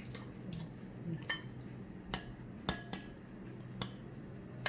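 A metal spoon or fork clinking and scraping against bowls in a few scattered, irregular taps, as cooked minced beef is scraped into a glass bowl of beaten eggs and stirred in.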